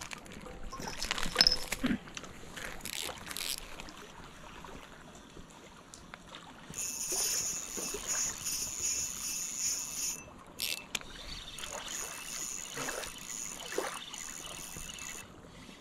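Spinning reel being cranked to reel in a hooked fish: a steady high whir with a fine regular pulse, in two spells with a short break between. Scattered handling knocks and clicks come before it.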